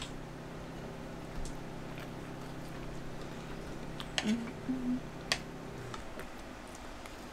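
A person gives two short hummed 'mm' sounds a little after four seconds in while chewing a mouthful of savory crepe. Under them runs a steady low hum that stops about six seconds in, with a few light clicks.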